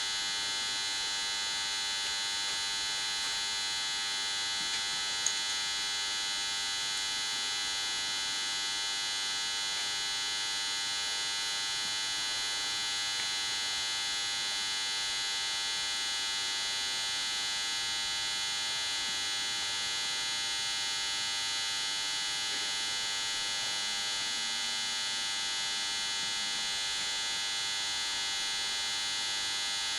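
Steady electrical hum with a high whine of many fixed tones, unchanging throughout, and one small click about five seconds in.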